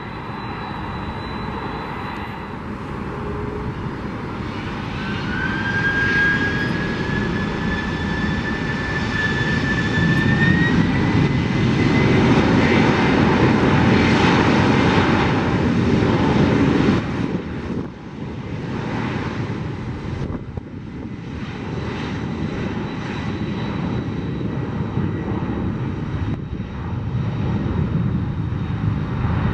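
Boeing 767 freighter's twin jet engines running as it taxis, with a thin whine rising slowly in pitch a few seconds in. The noise grows loudest about halfway through, dips suddenly, then holds steady.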